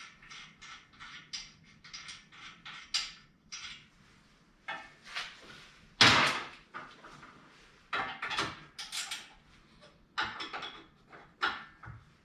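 Hand tools working the bolts loose on a steel rear bumper: a run of quick clicks or scrapes about four a second, then a loud metal clank about six seconds in and further clusters of sharp knocks and scrapes.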